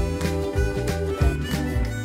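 Background music with a steady, pulsing bass beat and sustained instrumental notes.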